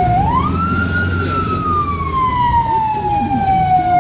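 Ambulance siren in wail mode, heard from inside the cab of a 2015 Fiat Ducato ambulance. The pitch climbs quickly in under a second, then falls slowly for about three seconds, and starts climbing again at the very end. Engine and road rumble run underneath.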